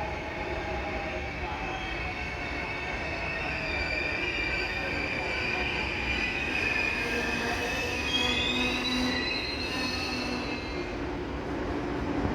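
Korail Class 341000 electric multiple unit braking as it pulls into a station, its wheels squealing in high drawn-out tones while lower tones from the train slide down in pitch as it slows.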